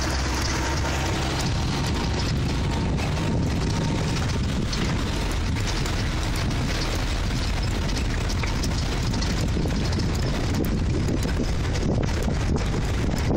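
Steady rumble of a vehicle driving along a gravel track, with wind buffeting the microphone.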